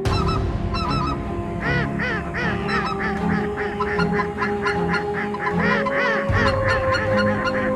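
A flock of greylag geese honking: many overlapping calls begin abruptly and keep up a rapid, continuous clamour, with soft music underneath.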